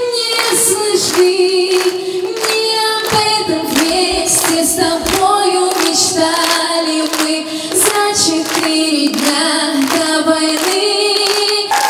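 A girl's solo voice singing a slow song unaccompanied through a microphone, holding long notes, while the audience claps along in time, about two claps a second.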